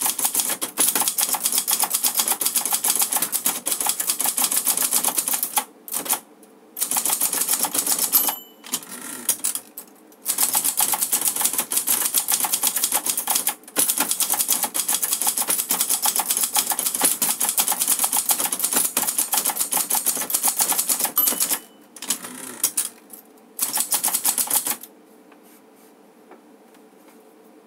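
Clover 747TF four-set Hangul manual typewriter being typed on fast: a dense, rapid clatter of typebars striking the platen, with a few short breaks. Twice a short high ding, typical of the line-end bell, comes just before a break. The typing stops a few seconds before the end.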